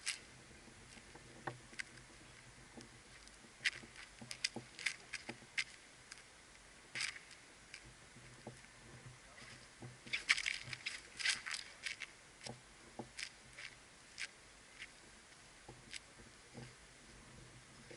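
Cossack shashka being twirled: short, irregular swishes of the blade cutting the air, coming in quick bursts about four seconds in and again around ten to twelve seconds in.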